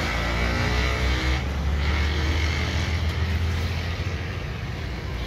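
Andrassay, rice-flour pastries, sizzling and bubbling as they deep-fry in a large karahi of hot oil, over a steady low rumble.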